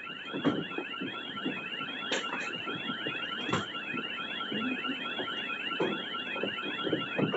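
Burglar alarm siren sounding: a tone warbling up and down about twice a second over a fast repeating chirp, with scattered knocks and clatter, the sharpest about two and three and a half seconds in.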